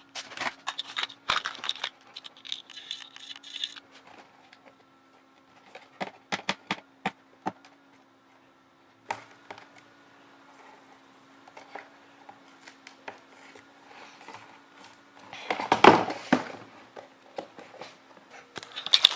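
Cardboard and plastic packaging being handled and pried open: scattered clicks, crinkles and scrapes, with a louder ripping burst about three-quarters of the way through, over a faint steady hum.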